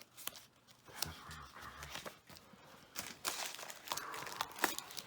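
Scattered rustling, crinkling and light knocks of paper and debris being handled and walked over, with a longer patch of crinkling about three seconds in.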